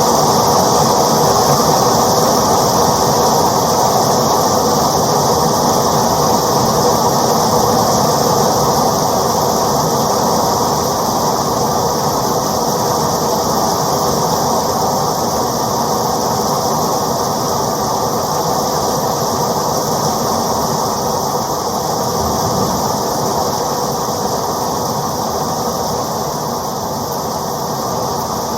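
Steady rain, a dense even hiss that eases off slightly toward the end.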